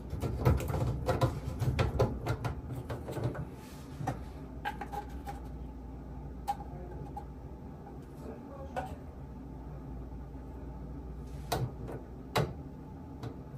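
Irregular clicks and knocks of plumbing parts being handled and fitted under a sink, likely the drain pipe and P-trap fittings. They come thick and fast for the first few seconds, then thin out to a few single knocks over a low steady hum.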